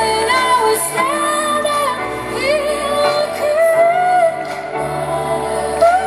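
A woman singing a slow melody of long, sliding notes into a microphone, over a live band's sustained bass and keyboard chords.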